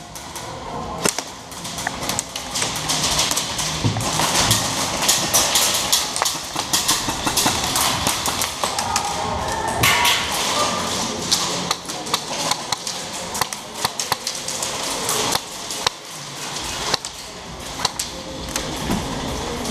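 Airsoft game in an indoor arena: rapid sharp cracks and taps of airsoft guns firing and BBs striking plywood walls, mixed with thuds of running and gear, echoing in a large warehouse hall.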